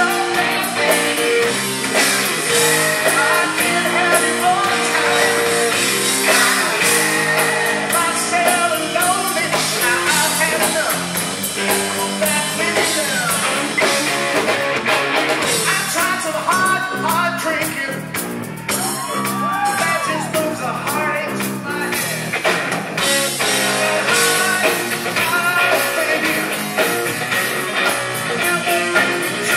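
Live rock band playing: electric guitars and a drum kit, with a singing voice.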